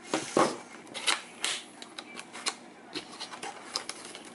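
Cardboard packaging being handled and opened: an irregular run of clicks, taps and light scrapes as the box flaps and inner cardboard tray are worked loose, loudest in the first half second.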